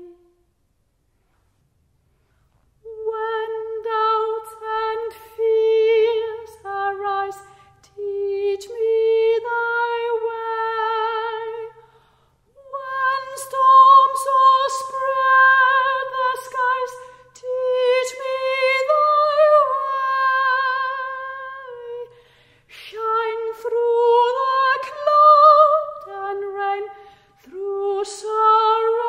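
A classically trained woman's voice singing a hymn verse unaccompanied, with a wide vibrato. She comes in about three seconds in and sings in phrases with short breath pauses between them.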